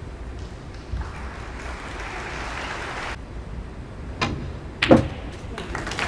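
A snooker cue tip clicks against the cue ball about four seconds in. Under a second later comes a louder, deeper knock as the ball strikes on the table.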